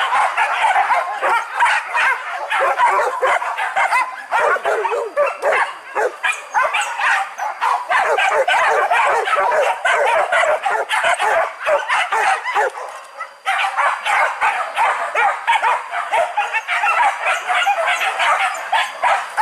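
A pack of wild boar hunting dogs barking and yelping many at once, in a rapid, overlapping din. It dips briefly about two-thirds of the way through, then resumes.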